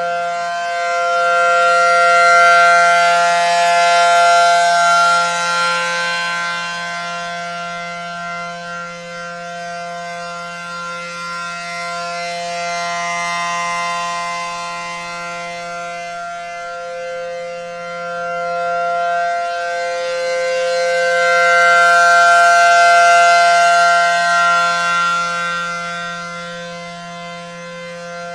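ACA Allertor-125 15 HP rotating outdoor warning siren sounding its steady alert signal: one steady multi-pitched tone that swells and fades as the rotating head sweeps toward and away from the microphone, loudest near the start and again toward the end. A steady low hum runs beneath it.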